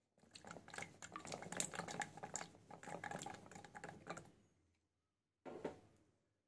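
Chopped green beans tipped into a pot of lentils, tomatoes and water: a rapid patter of many small pieces dropping and splashing for about four seconds, then one short burst more near the end.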